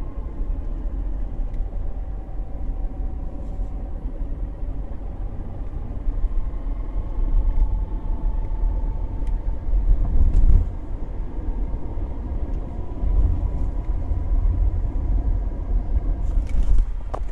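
Nissan X-Trail driving, with a steady low rumble and a faint whine that drifts slowly in pitch: the abnormal transmission noise. Louder rough patches come through twice, about ten seconds in and near the end.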